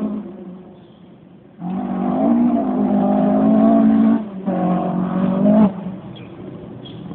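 Ford Escort Mk2 rally car engine, faint at first, then suddenly loud at full throttle from about one and a half seconds in. There is a short dip about four and a half seconds in, and the sound drops away sharply near six seconds.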